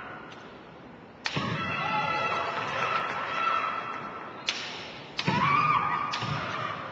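Women kendo fencers' kiai: a long, high-pitched shout held for about three seconds starting just over a second in, then a shorter rising shout near the end.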